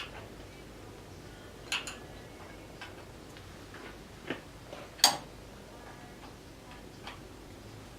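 Scattered sharp metallic clicks and clinks of a wrench and metal parts being handled, about half a dozen at uneven intervals. The loudest comes about five seconds in.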